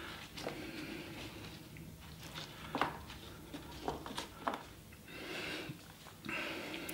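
Apple wedges being set down one by one in a stainless steel tray: a few faint, soft taps and clicks, spaced irregularly.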